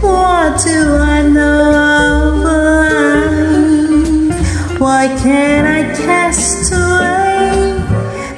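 Karaoke singing: a woman's voice sung over a reggae backing track with guitar and a steady bass line.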